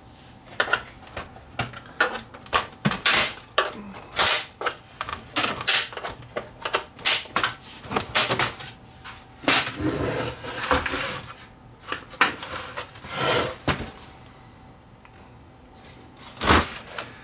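Irregular plastic clicks, taps and knocks as a Panasonic PV-V4522 VHS VCR's plastic cabinet is handled and its bottom-panel latches are worked loose, thinning out to a quiet stretch with one sharper knock near the end.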